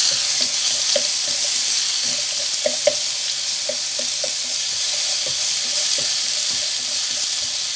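Ginger-garlic paste sizzling in hot oil in a nonstick pan, the hiss swelling just at the start. A wooden spatula stirs it, with light taps and scrapes against the pan now and then.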